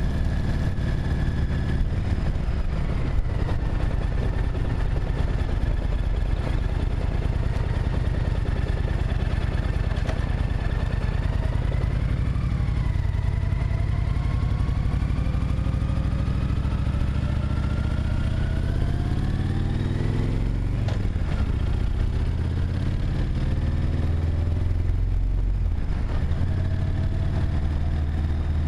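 Car engine and road rumble heard from inside the cabin while driving. A deep rumble runs throughout, and the engine pitch climbs as the car accelerates, dropping at a gear change about two-thirds of the way in and again near the end before rising once more.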